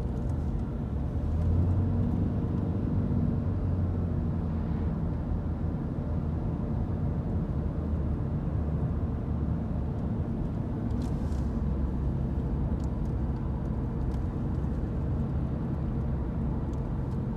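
Car driving along at steady speed: a continuous low engine and road rumble, swelling slightly a second or two in.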